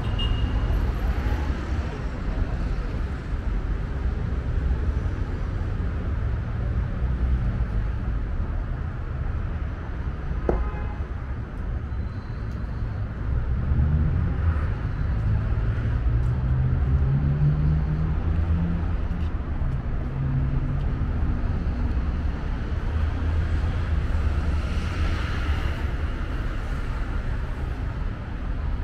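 City street traffic: a steady rumble of cars passing on the avenue, with one engine note rising in pitch as a vehicle accelerates, about halfway through.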